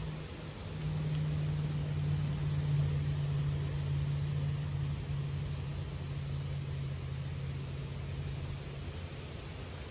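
A steady low engine hum, swelling about a second in and slowly easing off, over a soft hiss.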